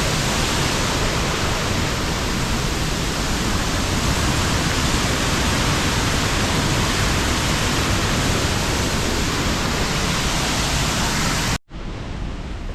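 Waterfall pouring: a loud, steady rush of falling water. Near the end it cuts off sharply and gives way to a quieter rush.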